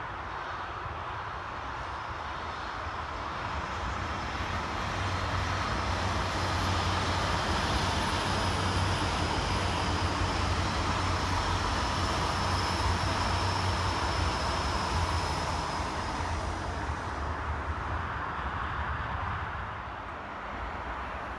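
Two coupled GWR Class 800 bi-mode trains passing on their underfloor diesel engines: a steady low hum with a high whine over it, growing as they approach and fading as they run into the distance.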